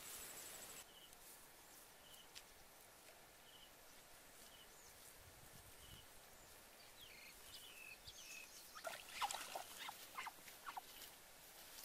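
Faint, mostly quiet outdoor sound with a small high chirp repeating about once a second. In the last few seconds comes a short run of rustling and crackling that fits quick footsteps through wet grass and weeds.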